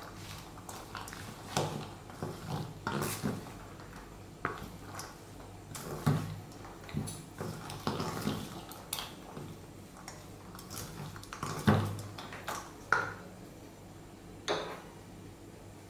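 A spatula stirring and tossing salad in a stainless steel bowl: irregular knocks and scrapes of the spatula against the metal, the loudest knock about twelve seconds in.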